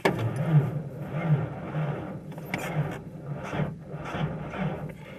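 A 1993 Ford Ranger's starter cranking the cold engine at about −28 °C, turning it over slowly with even pulses about twice a second, without the engine firing. It starts suddenly.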